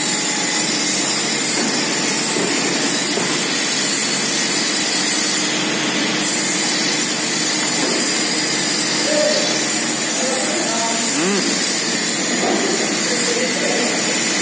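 Vertical cold box core shooter running through its cycle: a steady, loud mix of machine and air noise with no distinct knocks.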